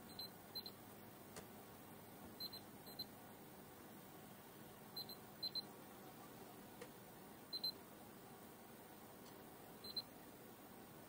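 Short, high electronic beeps from a test meter, mostly in pairs, recurring every two to two and a half seconds while probes are touched to points on a valve amplifier's circuit board, over a faint steady hum.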